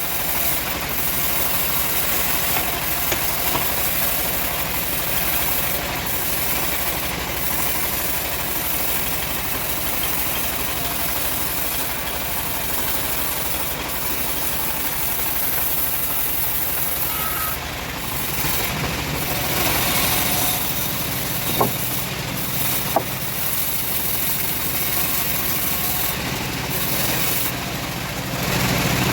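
Home-built bandsaw sawmill running steadily, with two sharp knocks about two-thirds of the way through.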